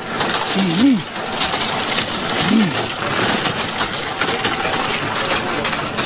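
Concrete pump running while concrete is pumped through the boom hose into ICF wall forms: a steady rushing noise with a faint hum.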